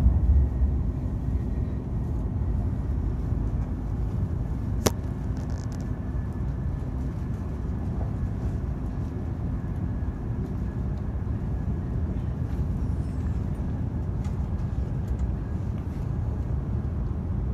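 Steady low rumble of a Shinkansen bullet train running at speed, heard from inside the passenger cabin, a little louder in the first second, with a single sharp click about five seconds in.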